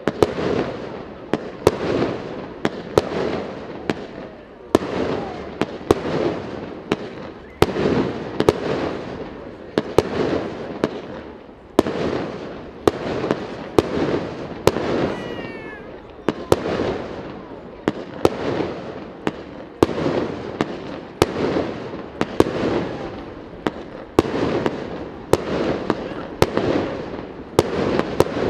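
Aerial firework shells bursting in quick succession, a sharp bang about every second, each trailing off in a rolling echo.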